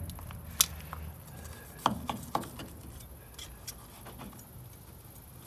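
A knife and metal tongs clicking and tapping against a wooden cutting board as smoked pork ribs are handled for slicing: a few sharp clicks in the first half, then fainter ticks.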